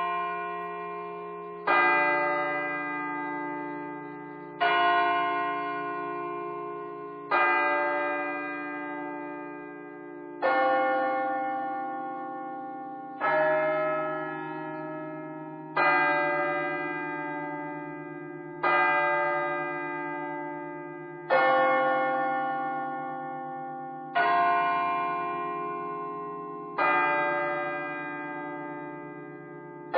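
Bells struck one at a time, about every three seconds, each note ringing on and fading into the next, the pitch changing from strike to strike.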